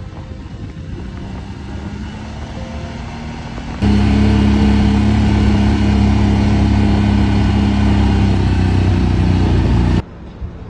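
CFMOTO 1000cc V-twin ATV engine running at low speed on the road. About four seconds in it turns suddenly much louder, with a steady low drone, and near the end it drops abruptly to a quieter background.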